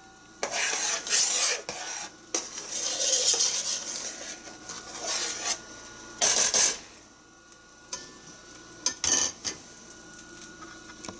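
Metal spoon stirring and scraping around the inside of a stainless steel pot of hot jam while skimming off the foam, in a series of scraping strokes with short pauses between them.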